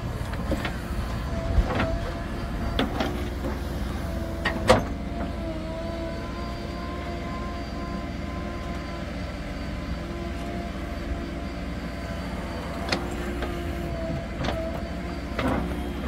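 Diesel earth-moving machinery running steadily, with a whine that wavers in pitch over the engine's rumble. Several sharp metallic clanks break in, the loudest about five seconds in.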